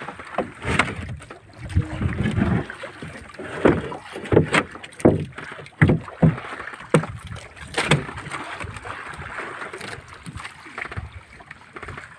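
Irregular knocks and thumps of hatch covers being set down and fitted over the fish hold on a small fishing boat's deck, over a steady background of wind and water.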